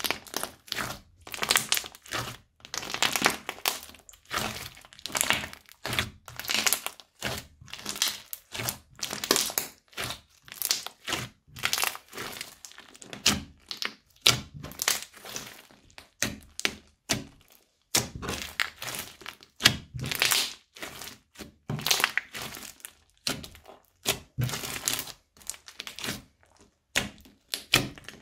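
Crunchy slime with beads mixed in, squeezed and pressed by hand: short crunching bursts, roughly one with each press, about one a second.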